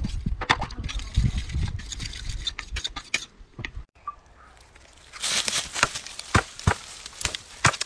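A knife blade scraping in strokes across a whetstone, until a break about four seconds in. After the break, dry conifer branches and needles crackle and snap in a run of short, sharp clicks.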